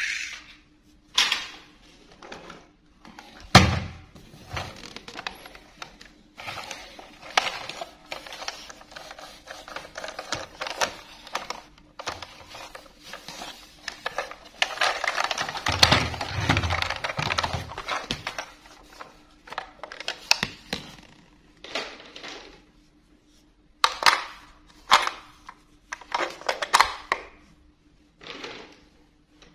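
A hard plastic toy locomotive being handled: scattered clicks, knocks and rattles as it is picked up, turned over and set down, with a run of separate sharp clicks near the end.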